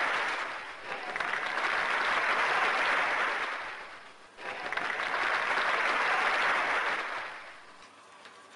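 Applause in three waves, each swelling and then fading; the last dies away near the end.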